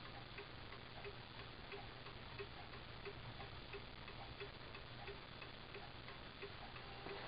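Seth Thomas round 8-day time-and-strike clock movement ticking quietly and evenly, about three ticks every two seconds. The pendulum has just been started at its minimum (escape) arc and is building up its swing.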